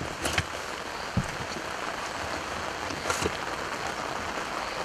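Heavy rain falling on a lake surface, a steady even hiss, with a few brief knocks about a second in and near three seconds.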